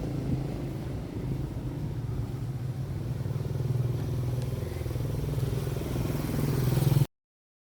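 A vehicle engine running steadily with a low hum, then cutting off abruptly about seven seconds in.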